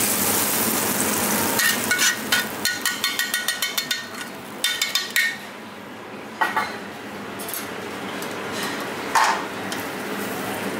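Steel kitchen tongs and a stainless pan clinking in a quick run for about two seconds, then a few separate knocks and clanks of metal utensils. A steady kitchen hiss runs under the first second or so.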